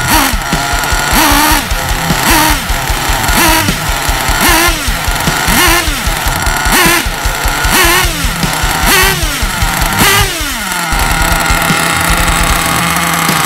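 Small two-stroke nitro glow engine of a 1/8 Hobao Hyper truggy running on the stand during break-in, its throttle blipped about once a second so each rev rises and falls back. The blips stop about eleven seconds in and the sound goes steady.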